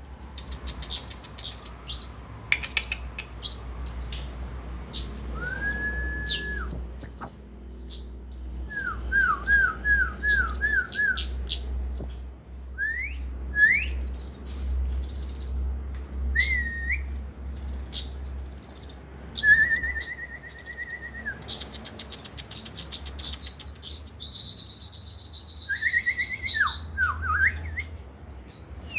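Kemade songbird singing: sharp high chips mixed with runs of quick repeated whistled notes and a few held whistles, then a long buzzy trill a few seconds before the end. A steady low hum runs underneath.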